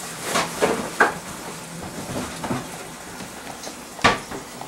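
Kitchen clatter: a few scattered clinks and knocks of dishes and cooking utensils over a faint steady hiss, with one sharper knock about four seconds in.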